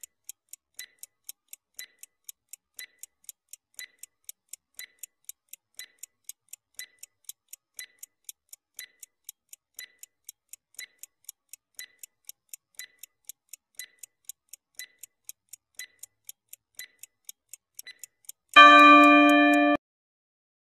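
Countdown stopwatch ticking sound effect, a steady tick-tock of about two ticks a second. Near the end the ticking stops and a loud ringing time-up tone sounds for about a second.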